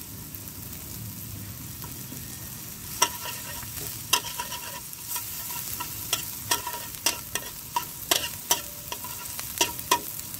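Chopped garlic sizzling in hot cooking oil in a steel pan, being sautéed until it browns, with a steady hiss. A metal spatula scrapes and taps the pan as it stirs, the clicks coming more often in the second half.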